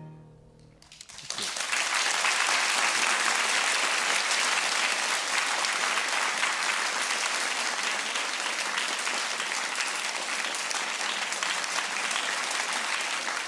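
Concert audience applauding, starting about a second in and going on steadily, right after the last note of the song fades away.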